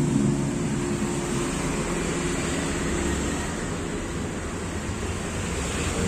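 Steady road traffic noise, with a vehicle engine hum that fades about halfway through.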